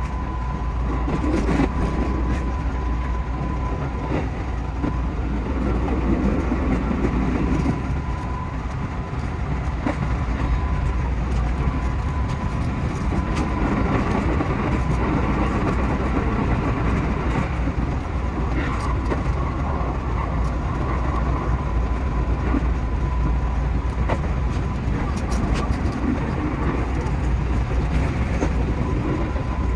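JR West 221 series electric train running along the track, heard from the driver's cab: steady running noise with a thin whine and occasional wheel clicks over rail joints.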